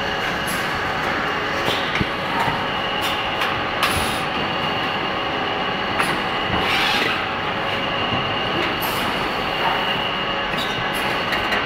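Meat-packaging line machinery running: a steady machine noise with a constant high whine, scattered clicks and clacks, and a short hiss about seven seconds in.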